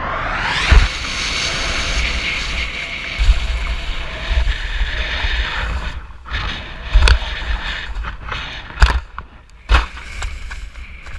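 Wind rushing over a body-worn action camera's microphone during a fast descent over snow, broken by several heavy thumps and knocks.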